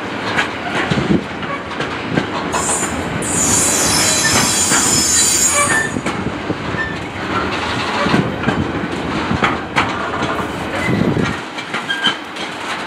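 Container wagons of an intermodal freight train rolling past, wheels clicking over the rail joints. A high-pitched wheel squeal starts about two and a half seconds in and lasts a few seconds.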